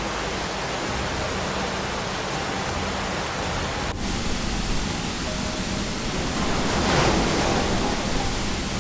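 Steady rushing roar of fast-flowing floodwater, with an abrupt change about four seconds in to another stretch of the same kind of noise.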